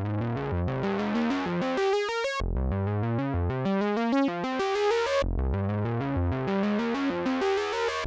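Analog synthesizer, the Behringer Poly D driven over MIDI from a Moog Grandmother, playing a fast sequenced pattern of notes over a bass line. The phrase repeats about every three seconds.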